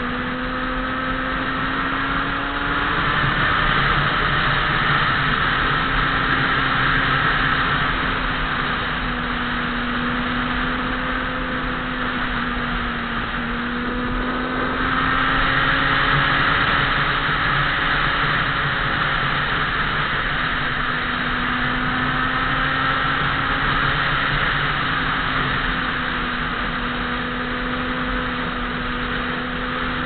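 A vehicle's engine running at road speed, its pitch rising and falling slowly as it speeds up and eases off, over a steady hiss of wind and road noise. It grows louder a few seconds in and again about halfway through as it accelerates.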